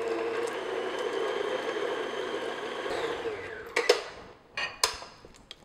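Tilt-head stand mixer motor running as the paddle beats soft butter, then switched off about three seconds in, its hum sliding down in pitch as it winds down. A few sharp clacks follow, the loudest as the mixer head is tilted up.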